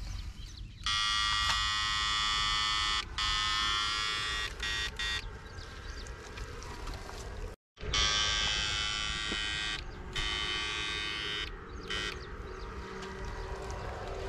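Battery-powered electrofishing backpack unit buzzing loudly while its pole is in the water, switched on and off in spells of about two seconds with short breaks between.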